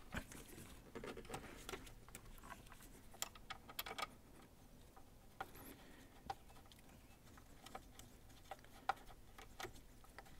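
Faint, scattered small clicks and taps of gloved hands handling bolts, wiring and plastic parts in a car's engine bay.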